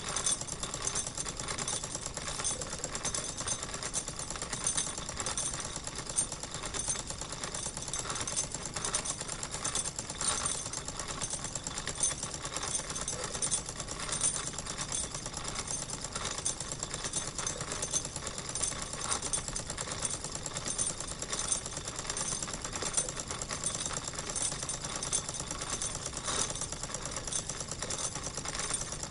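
Wilesco model steam engine running steadily, a fast, even mechanical clatter with a thin high ringing over it.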